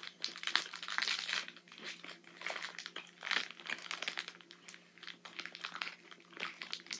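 Plastic wrapper of an Oreo cookie package crinkling in the hands as it is worked open, in irregular crackles and rustles.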